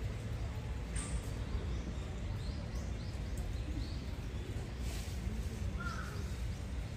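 Outdoor ambience: a steady low rumble, with a few faint, short bird calls and a single sharp click about a second in.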